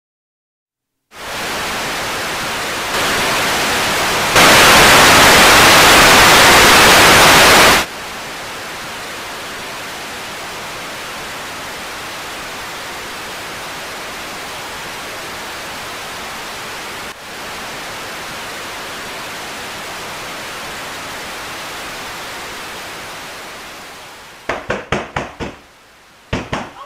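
Steady static hiss that starts about a second in, grows louder in two steps, is very loud for about three seconds, then drops to a steady lower hiss and fades out. Near the end, a quick run of knocks on a door.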